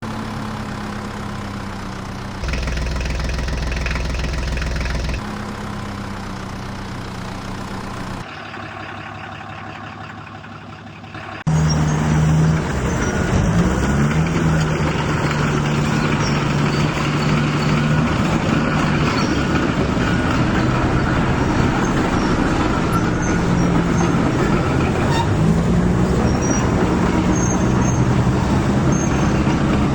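Heavy-vehicle engine sound running in several abruptly cut segments, with a steady low hum that shifts pitch between segments. It gets louder and rougher a little over a third of the way in, with brief rises and falls in pitch.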